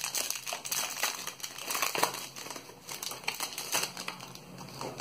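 Foil Pokémon TCG booster pack crinkling irregularly as it is torn open by hand, without scissors.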